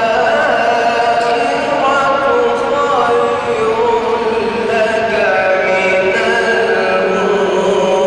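A male reciter chanting the Quran in melodic recitation, holding long drawn-out notes that slide slowly up and down in pitch.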